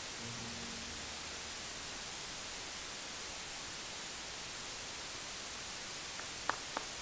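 Steady hiss with the last low notes of the jazz combo dying away in the first second. A few single handclaps come near the end as the audience starts to applaud.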